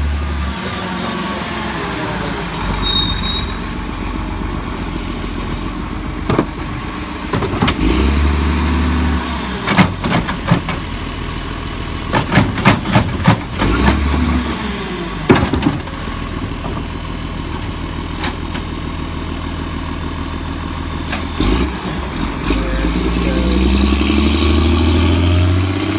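Diesel garbage truck idling while its cart lifter tips a green wheeled cart, with a run of loud bangs as the cart is dumped and knocked against the hopper. Near the end the engine rises in pitch as the truck pulls away.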